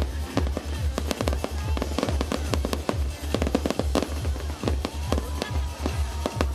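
Fireworks display: a dense run of sharp bangs and crackles from bursting shells. Music with a steady, fast bass beat plays under them.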